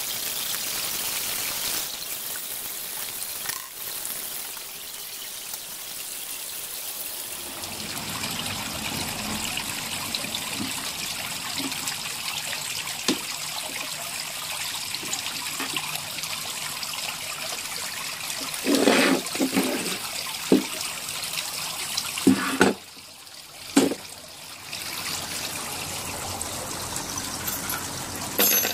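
Water trickling and splashing steadily. In the last third come several sharp knocks of wooden particleboard panels being handled and set down.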